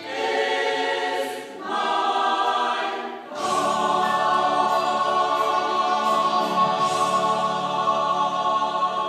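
Mixed-voice Salvation Army songster brigade singing a slow sacred piece: two short sung phrases, then a long held final chord starting about three seconds in.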